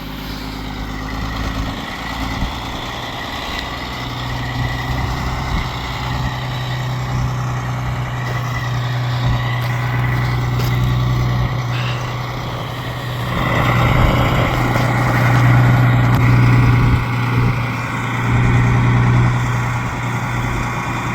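The 11.1-litre Detroit Diesel Series 60 inline-six of a 1995 International cab-over semi, running steadily with a deep, even drone. It grows louder for a few seconds about two-thirds of the way through and again near the end.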